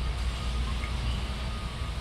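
Steady low rumble and hiss of a large store's background noise, with no distinct events.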